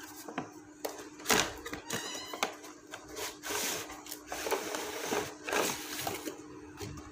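Cardboard packaging being handled and slid open: a sharp knock a bit over a second in, a brief squeak around two seconds, then scraping and rustling as the inner tray slides out of its sleeve.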